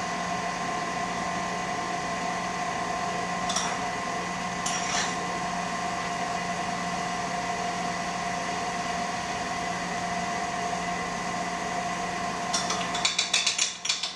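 Bowl-lift stand mixer motor running steadily with a constant hum while oil is added to the bowl, with a couple of brief clinks. Near the end a burst of rattling clicks, and the motor switches off.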